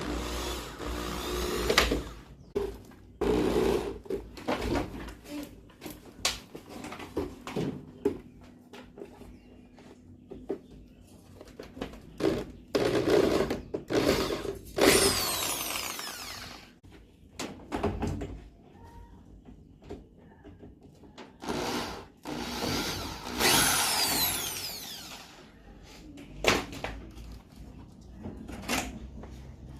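Power drill running in several bursts of a couple of seconds each, its motor pitch sliding as it spins up and down, with knocks and clatter of parts being handled between the bursts.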